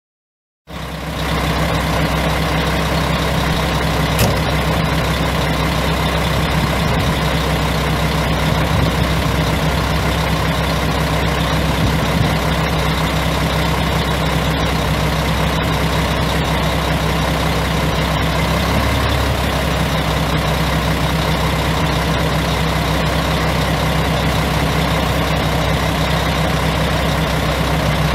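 Mack E7 12.0-litre inline-six turbo diesel in a 2001 Mack RD688S dump truck, idling steadily; the sound cuts in suddenly under a second in.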